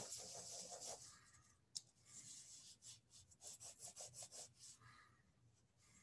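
Faint pencil sketching on paper: light, quick scratching strokes, with a rapid run of short strokes in the second half and a single sharp tick just under two seconds in.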